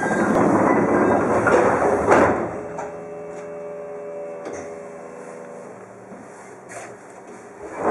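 Pneumatic sliding doors of a stationary Chichibu Railway 1000 series electric train (ex-JNR 101 series) closing: a loud hiss of air ending in a sharp thud about two seconds in. Then comes a steady hum with several held tones from the standing train's onboard equipment.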